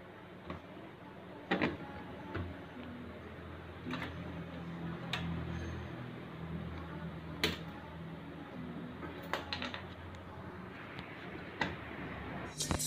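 Scattered clicks and light knocks, about one every second or two, from hands working at an LG front-loader's door lock switch and its wiring connectors to trace a DE1 door-switch error. Music starts just before the end.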